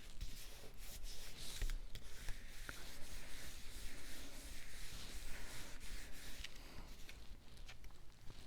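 Hands rubbing and handling cardstock pieces: a steady scratchy rustle of paper sliding and being pressed together, with a few small ticks.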